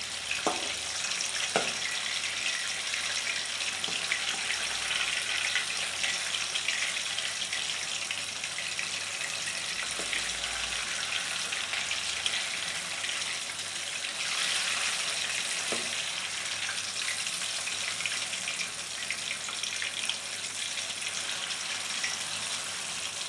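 Hot oil sizzling steadily as coated nendran bananas deep-fry in a pan, with a few light knocks of a steel slotted spoon against the pan as they are turned.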